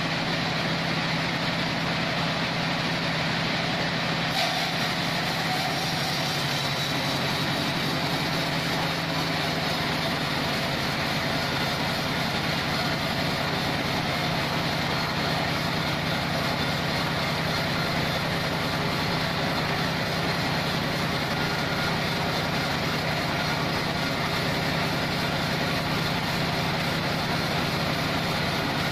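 A band sawmill's engine running steadily at a constant speed, with a hiss that brightens slightly about four seconds in.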